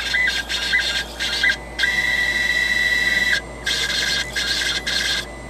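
Stepper motors of a Lumenlab micRo CNC router whining as they drive a marker through lettering: a high, steady whine that starts and stops with each move, in short bursts of motion and one longer run of about a second and a half.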